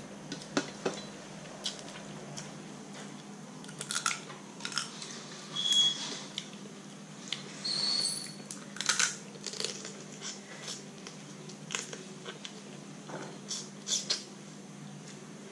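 Eating cooked Dungeness crab by hand: irregular small cracks and clicks of soft shell being broken and picked, with chewing. A steady low hum runs underneath.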